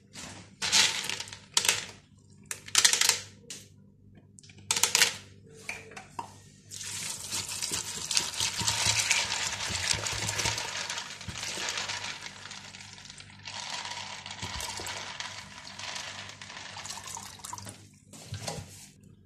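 Dry chickpeas rattling against a plastic bowl in several short bursts. Then water is poured onto them in a steady splashing stream for about ten seconds, with a brief break partway, as the bowl fills to soak them.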